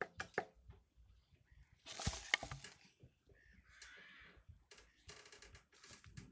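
Clicks and light knocks from handling the generator as oil is topped up, with one sharp metallic clank about two seconds in that rings briefly. The engine is not running.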